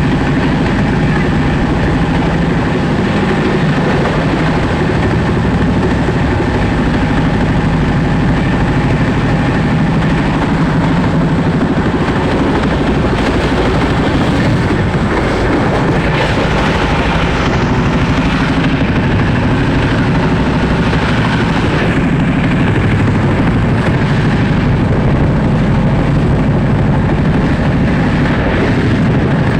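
Passenger train running at speed, heard from on board: a loud, steady rumble of wheels on rails with rushing air noise.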